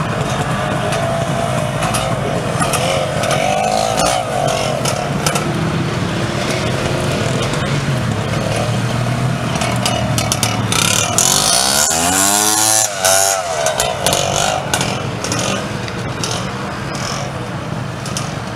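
Off-road motorcycle engine running hard as a rider works up a steep dirt slope, the revs climbing sharply and dropping back about twelve seconds in.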